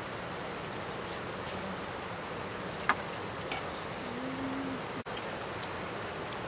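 A steady, even hiss runs under one sharp metallic clink about three seconds in, as a steel ladle serving curry knocks against a steel plate.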